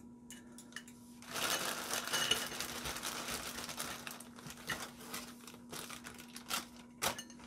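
Clear plastic hardware bag crinkling as it is grabbed and handled, starting about a second in and loudest for the next few seconds, then tapering into a few sharp clicks.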